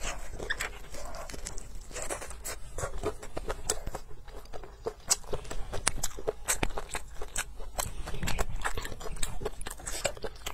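Close-miked chewing and biting of a soft rolled spring pancake (chunbing), a steady run of irregular mouth clicks and smacks.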